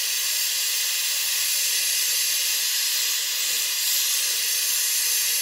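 LPG-oxygen jeweller's torch with a size 7 tip burning at high regulator pressure: a steady, loud hiss of a hard, hot flame played on scrap silver in a crucible to melt it.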